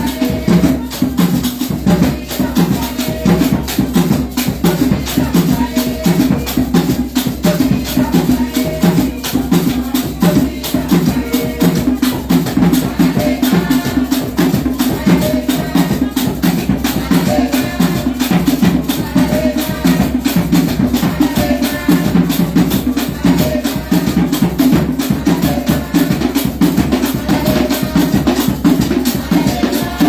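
Live drumming on tall wooden hand drums in a fast, steady rhythm, with rattling percussion over it, accompanying a dance.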